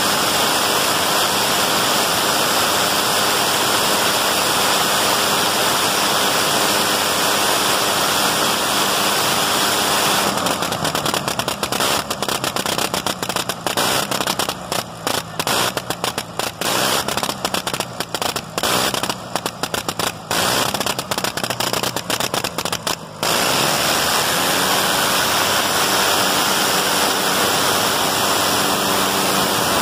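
1918 Gnome rotary aircraft engine running on a test stand, spinning its propeller. About ten seconds in, the steady running breaks into rapid stuttering, cutting out and back in many times a second. It settles back to steady running a little before the last quarter.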